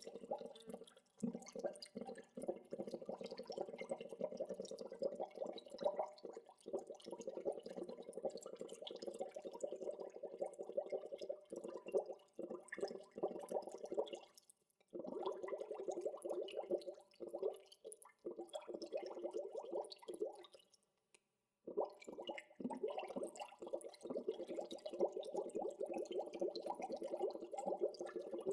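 Gentle natural bubbling water: a dense, continuous patter of small bubbles popping and gurgling. It drops out briefly twice, about halfway through and again about two thirds in.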